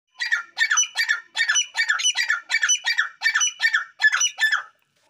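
Grey francolin calling: a fast run of about a dozen harsh, high-pitched notes, evenly repeated, stopping shortly before the end.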